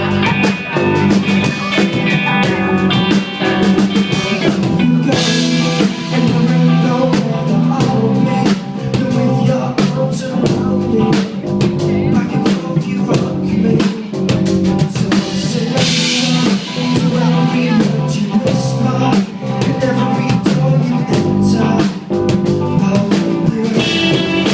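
Loud pop-rock backing music with a steady drum-kit beat and guitar.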